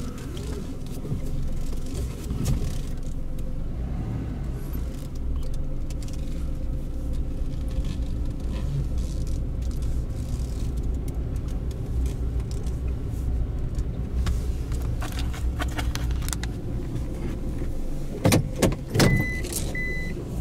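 Car running and moving along the road, heard from inside the cabin as a steady low engine and road rumble. Near the end come a few sharp clicks and knocks, then a repeating high electronic beep.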